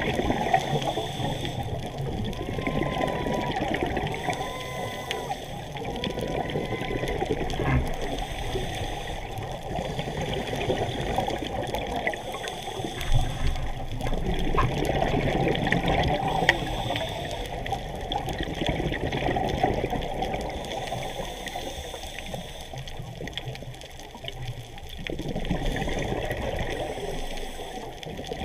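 Muffled rush and bubbling of water heard from an underwater camera, with scuba divers' exhaled regulator bubbles; it swells and eases every few seconds.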